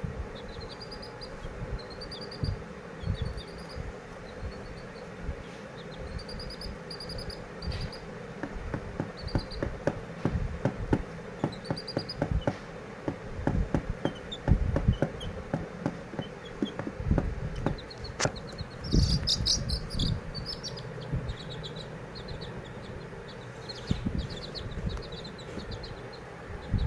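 A small bird chirping: short, high, rising chirps repeated in runs, coming thicker and faster after about eighteen seconds. Irregular knocks and thumps of handling sound under them.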